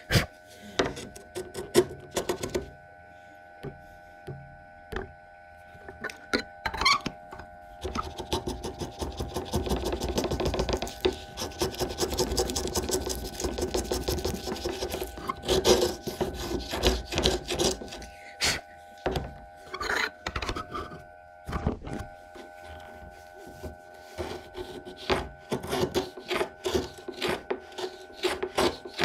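Hand router plane paring thin shavings off a tenon cheek in repeated scraping strokes, with sharp clicks and knocks as the plane is set down and its blade depth adjusted. The strokes run most steadily through the middle and turn more broken near the end. It is fine-tuning a tenon that fitted too snugly.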